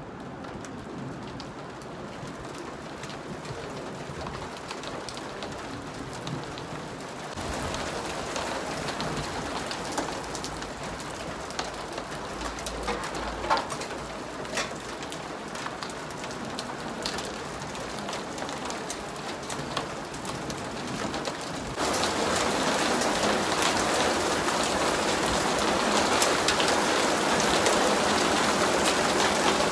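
Heavy rain pouring down, with the patter of drops striking nearby surfaces. It grows louder in two sudden steps, about a quarter of the way in and again about three quarters of the way in, with a brief low rumble near the middle.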